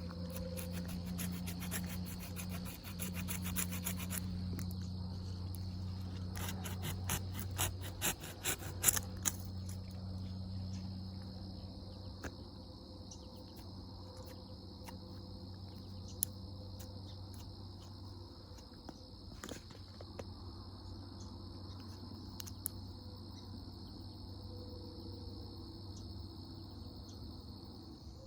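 Crickets trilling steadily, under a low steady hum. Through roughly the first nine seconds a quick run of clicks and rattles comes and goes, loudest near the nine-second mark.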